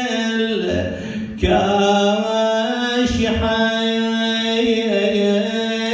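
Unaccompanied solo chanting of an Arabic elegy (a Husayni mourning lament), long drawn-out held notes that waver slightly, with a new phrase starting about a second and a half in and the word "al-kashiha" sung past the middle.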